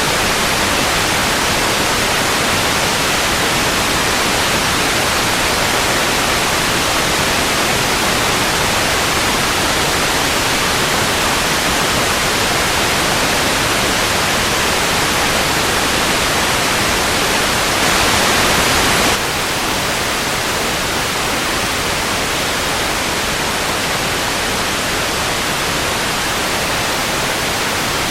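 Steady hiss of analogue TV static, an even white noise with no tones. About two-thirds of the way through it briefly gets louder for a second, then settles a little quieter than before.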